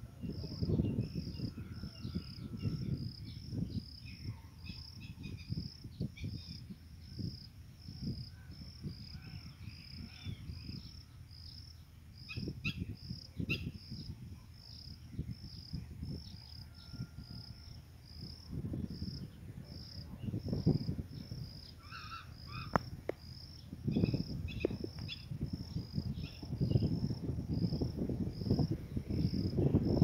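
An insect chirping steadily, a high note repeated about twice a second, with a few scattered bird calls over it. Wind buffets the microphone in gusts, the loudest sound, heaviest in the last third.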